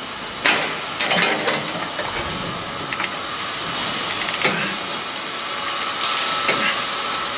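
Metal-shop noise of angle grinding and arc welding: a continuous hiss with sharp metallic clanks and knocks scattered through it. A steady high whine runs through the middle, and the hiss swells near the end.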